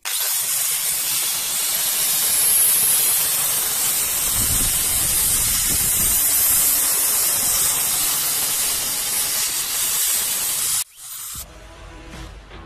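Angle grinder with a sanding disc running against wooden pallet boards: a loud, steady grinding hiss that cuts off suddenly about eleven seconds in. Music follows.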